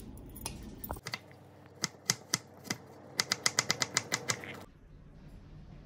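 Kitchen knife chopping a peeled broccoli stem into small pieces on a plastic cutting board: a few spaced chops, then a quick run of rapid chops at about eight a second that stops about two thirds of the way through.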